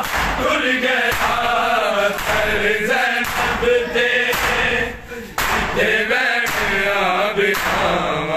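A crowd of men chanting a noha (Shia lament) together, with the whole crowd's hands slapping their bare chests in unison (matam) about once a second.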